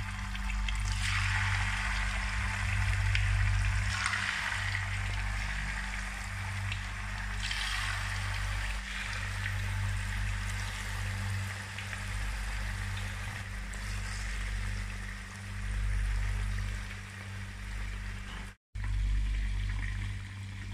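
Marinated chicken pieces frying in hot oil in a frying pan: the sizzle swells each time fresh pieces go in, several times in the first eight seconds, then settles into a steady hiss and bubbling. It cuts out for a moment near the end.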